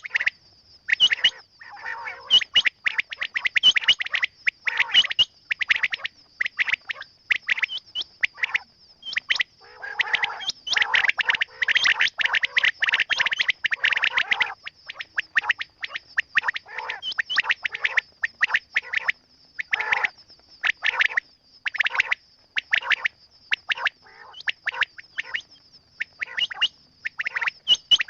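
Quail calling over and over in quick runs of short chirps and squawks, busiest about halfway through, over a steady high-pitched tone.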